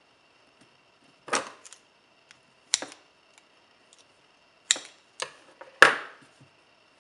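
Handling noise at a work table: about five sharp, irregular knocks and taps as fondant is worked into a silicone mold with hands and tools, the last knock the loudest.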